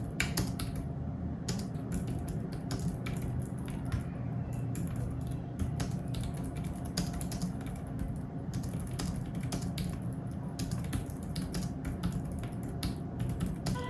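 Typing on a Logitech K380 wireless keyboard: a steady run of quick, irregular key clicks from its low-profile keys.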